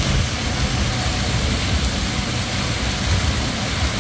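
Tall fountain water jets rushing and splashing down into a pool: a steady, loud hiss of falling water with an uneven low rumble underneath.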